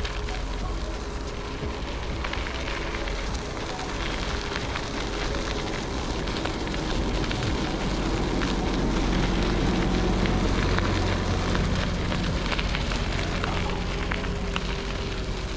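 Vehicle driving slowly: a steady low engine and road drone with a continuous crackle of tyres rolling over a rough surface.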